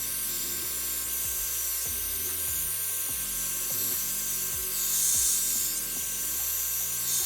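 MiroPure 4-in-1 hot air brush running, a steady rush of air with a faint motor whine, louder for a moment about five seconds in. Background music plays underneath.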